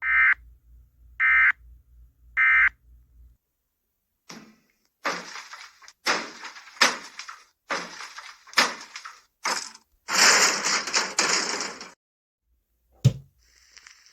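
Emergency Alert System end-of-message tones: three short data bursts about a second and a quarter apart. From about four seconds in come about ten loud noisy bangs about half a second apart, then a longer crash of about two seconds and a single sharp knock near the end.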